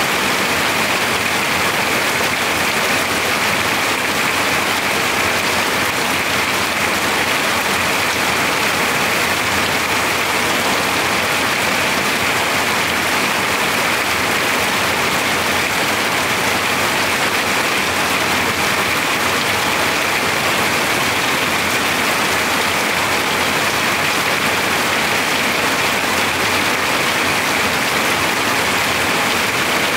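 Heavy rain falling steadily on a metal-sheet roof, a dense, even rush of drops that never lets up.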